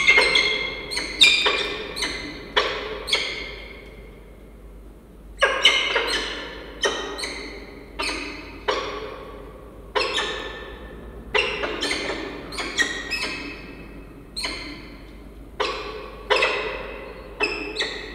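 A pair of peregrine falcons calling during a bonding visit at the nest ledge: a long run of short, sharp, pitched call notes, coming in quick bursts of two to five with short pauses, and a longer pause of about two seconds some four seconds in. Each note rings briefly in the wooden nest box.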